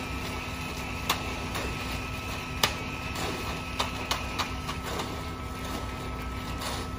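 Concrete mixer truck running with a steady drone while wet concrete is pushed through the forms, with sharp clicks and knocks of rakes and shovels on the concrete and forms every second or so, the loudest about two and a half seconds in.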